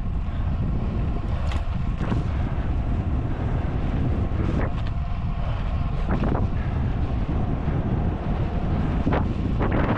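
Wind buffeting a road cyclist's camera microphone at speed: a steady low rumble, with a few brief sharper noises scattered through it.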